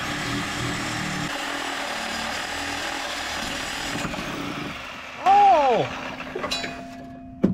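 Power tool running steadily for about five seconds, then dying away. Near the end come two loud sounds that rise and then fall in pitch.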